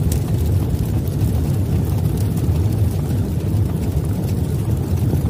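Intro sound effect: a deep, steady rumble with a brief sharp hit at the start.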